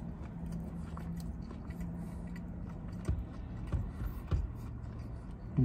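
A person chewing a mouthful of Big Mac with the mouth closed, with a few soft wet mouth clicks between about three and four and a half seconds in, over a steady low hum.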